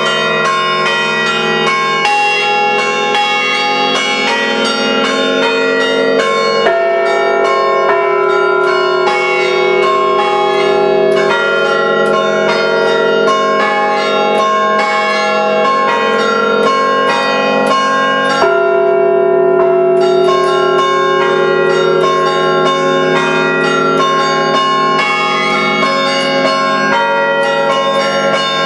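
Five church-tower bells played by hand through rope pulls, struck in a rapid, continuous rhythmic pattern. The overlapping strokes ring on into one another. The strikes thin out briefly about two-thirds of the way through.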